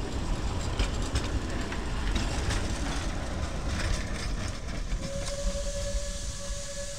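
La Trochita narrow-gauge steam train's wooden carriages rolling past, wheels clicking over the rail joints over a low rumble. About five seconds in, the locomotive's steam whistle starts and holds one steady note.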